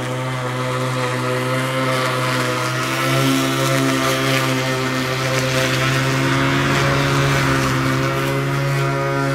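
Ruris RXi 3000 battery-powered lawn mower running, its electric motor and blade giving a steady hum with a set of higher tones. It is pushed through slightly damp grass, cutting it, and a rushing noise from the cutting grows from about two seconds in and eases near the end.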